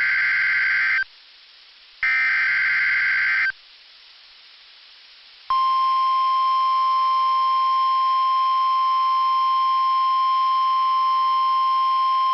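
Emergency Alert System SAME header: two shrill digital data bursts, each about a second and a half long with a short gap between. About five and a half seconds in, the single steady NOAA Weather Radio alert tone (about 1050 Hz) starts abruptly and holds.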